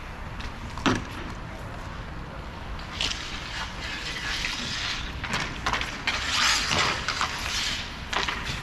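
Roller hockey play: several sharp clacks of sticks and puck, the loudest about a second in, with short scraping hisses of skates over a steady low rumble.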